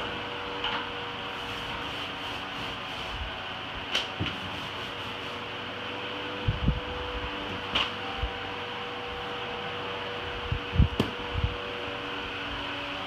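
A steady whirring hum throughout, with a few soft low thumps scattered through it, the loudest a short cluster near the end.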